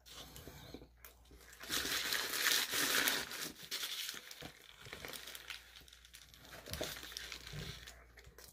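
Paper wrapper around a shawarma wrap crinkling as it is handled, loudest from about two to three and a half seconds in, then a bite and chewing heard up close.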